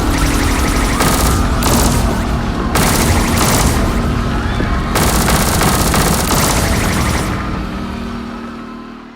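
Repeated bursts of rapid automatic gunfire sound effects mixed with music and a steady low tone, fading away over the last two seconds.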